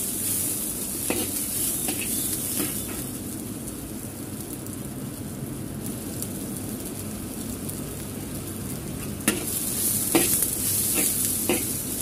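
Sliced shallots, garlic and bird's eye chilies sizzling in hot oil in a wok, stirred with a spatula that scrapes and taps against the pan now and then. The sizzle grows louder and the taps come more often in the last few seconds.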